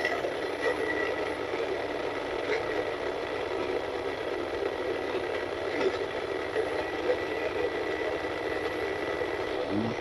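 A steady mechanical hum, like a motor running, with a few faint clicks.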